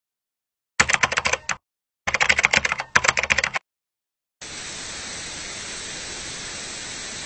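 Rapid typing on a laptop keyboard in three short runs of clicks, then a steady hiss of sand running through a glass hourglass, which cuts off suddenly at the end.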